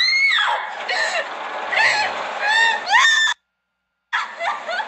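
A woman screaming in pain as her hand is caught in a bread slicing machine: several rising-and-falling cries that cut off suddenly about three seconds in. After a short silence, a briefer burst of sound comes near the end.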